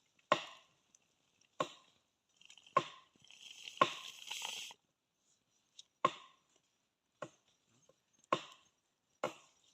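Blade chopping on a wooden chopping block, single hard chops roughly once a second at an uneven pace, with a short rustle about three seconds in. It is bird meat being cut up for a curry.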